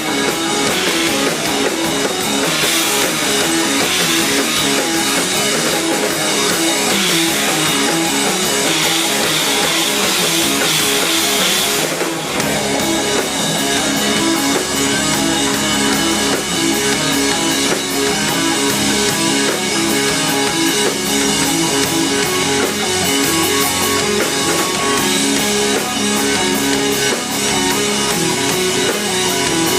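A live rock band playing an instrumental passage: electric guitars and bass over a drum kit, with a heavy wash of cymbals that eases back about twelve seconds in.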